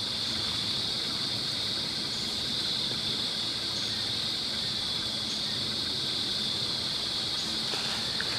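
Steady, high-pitched chorus of insects, an even drone that holds without change.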